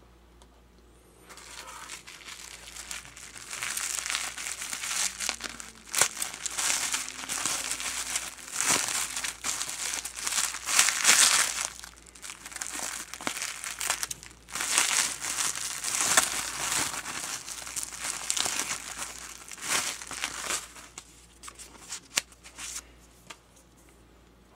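Bubble wrap crinkling and rustling as it is handled and unwrapped, with sharp crackles throughout; it starts about a second in and dies down near the end.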